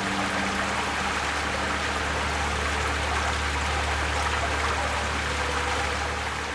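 Rushing water of a mountain stream: a steady, even hiss with no breaks.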